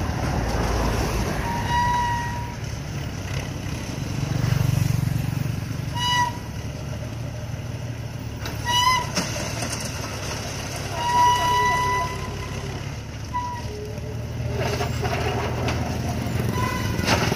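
Engine of a crawler-mounted cable crane running under load with a steady low drone, working harder for a moment about four seconds in, while its winches swing and hoist the stone bucket. Short high-pitched squeals come now and then, about six times.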